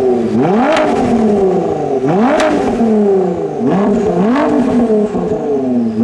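Ford GT's twin-turbo V6 blipped repeatedly through its QuickSilver Inconel sports exhaust with its central GT LM-style tips, while the car stands still. There is a quick rise in revs about every one and a half to two seconds, each falling back toward idle, with a sharp snap as the throttle closes.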